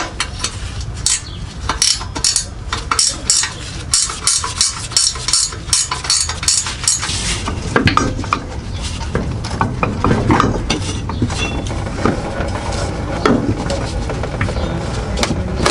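Hand wrench clicking and clinking on the bolts of an exhaust hanger bracket as they are loosened, in quick runs of sharp metallic clicks. Later come scattered metal knocks as the drive shaft is moved.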